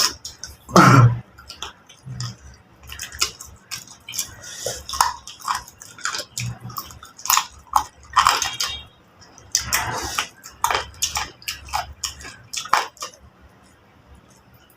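Close-up eating sounds: irregular chewing and lip-smacking, with scattered clicks and clinks of dishes.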